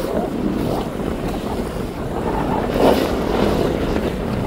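Wind buffeting the microphone on a boat on open water, with the wash of waves. It swells briefly about three seconds in.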